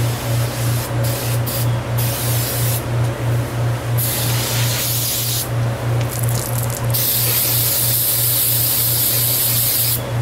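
Car cleaner being sprayed onto a lawn-mower foam air filter: hissing bursts of spray, the last one held for about three seconds near the end. Under it runs the steady pulsing hum of a garage fan.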